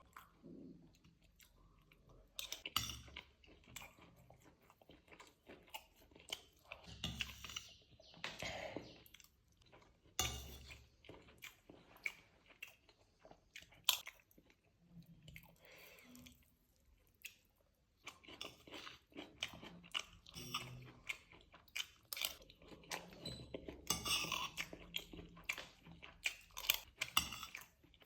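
A person chewing and crunching crisp food in irregular bursts with short pauses, busier in the last third.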